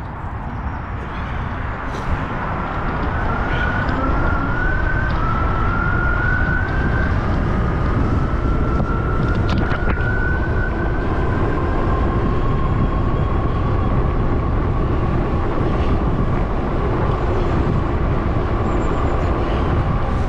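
Wind buffeting hard on the microphone as the Fiido Titan e-bike picks up speed under full turbo-plus assist. Over it the bike's electric motor whines, the whine climbing slowly in pitch as the speed builds.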